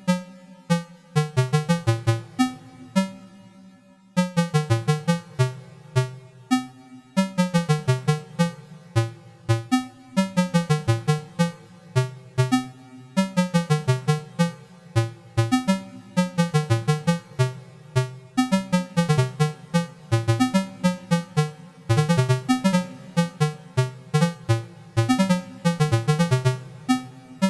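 Electronic music: rapid runs of short, plucked-sounding synthesizer notes in repeating phrases, with a brief pause about four seconds in.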